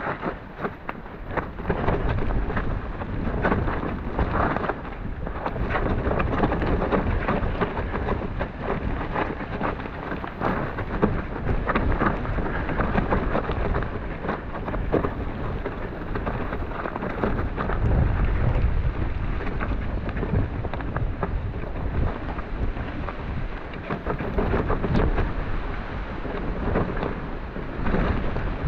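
Mountain bike descending a muddy, rocky trail, heard on the rider's action camera: a continuous rumble of wind and tyres over wet ground, broken by frequent knocks and rattles as the bike jolts over rocks and roots.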